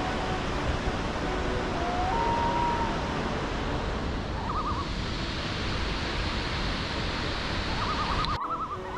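Steady rushing outdoor noise of the creek-side walk, with a short rising bird whistle about two seconds in and quick bird trills later on; the noise drops off suddenly near the end.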